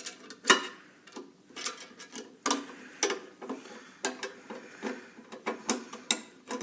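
Irregular sharp metallic clicks and ticks, roughly one or two a second, of a hand tool working a fastener loose.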